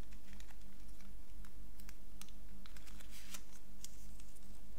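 Light clicks and rustles of a paper card insert from a phone box being handled and opened, with a brief denser rustle a little after three seconds in, over a steady low hum.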